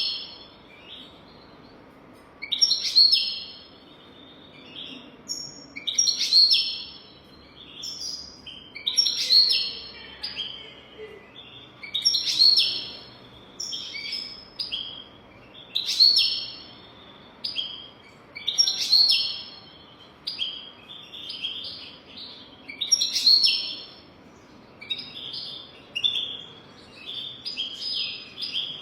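European goldfinch singing: short phrases of high, bright twittering notes, a new phrase about every one and a half to three seconds.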